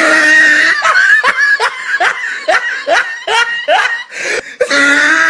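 A person laughing hard and loudly, a long unbroken run of short 'ha' bursts at about three a second.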